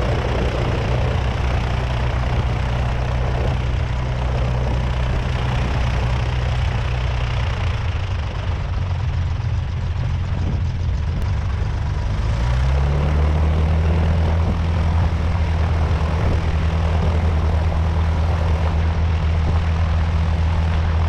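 Light single-engine airplane's piston engine and propeller running steadily at low power. Its pitch rises over about a second near the middle, then holds at the higher speed.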